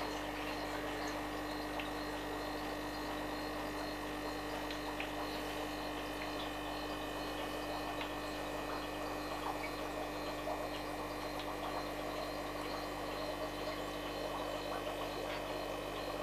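Aquarium filter running: a steady hum with a held low tone, with faint irregular ticks over it.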